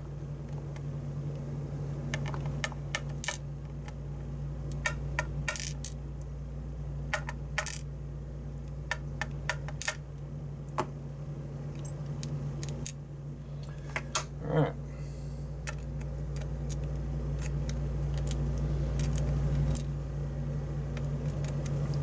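Tiny brass lock pins and springs tipped out of a lock plug and set into a plastic pinning tray: a scatter of small, irregular metallic clicks and ticks, over a steady low hum.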